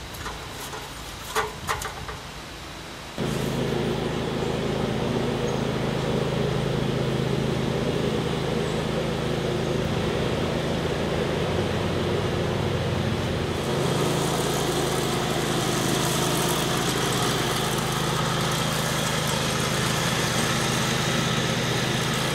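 A riding lawn tractor's engine running steadily, cutting in abruptly about three seconds in and turning brighter about halfway through. Before it come a few light clicks and knocks.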